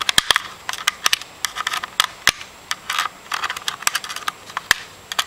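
Small screwdriver clicking and scraping on tiny screws in a laptop's plastic case: irregular sharp ticks with short scratchy patches between them.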